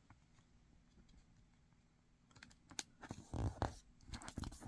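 Origami paper being folded by hand and pressed into a crease. About halfway in come a scatter of short crisp paper crackles and ticks, thickening toward the end.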